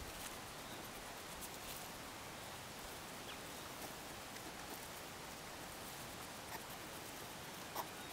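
Faint rustling and scattered small clicks of a hedgehog foraging nose-down in short grass, over a steady background hiss, with one slightly louder click near the end.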